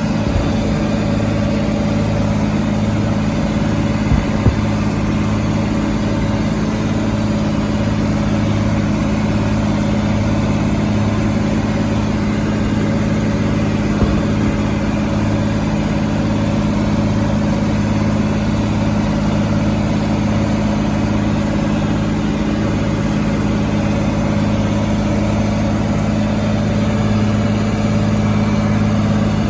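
Fendt 614 LSA Turbomatik E tractor's diesel engine running at a steady, constant speed under the load of ploughing, with a couple of brief knocks along the way.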